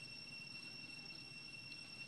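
Faint, steady high-pitched drone of insects, two thin unbroken tones over a low background hiss.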